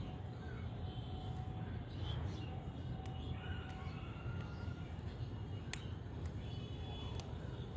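A parakeet's beak pecking at a guava on a metal cage floor: a few sharp clicks over steady low background noise.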